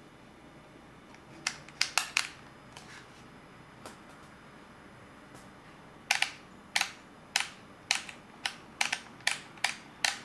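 Canon EOS Kiss X6i main dial being turned one notch at a time, a sharp click at each step as the shutter speed is stepped up towards BULB. A quick run of four clicks, a pause with a couple of faint ones, then about ten clicks at roughly two a second.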